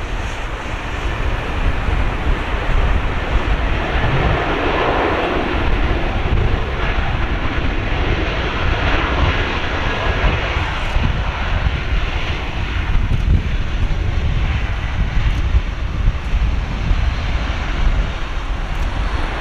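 Airbus A320-232 jet engines (IAE V2500) running as the airliner rolls along the runway. The roar swells about four seconds in and then eases off, over a low rumble of wind on the microphone.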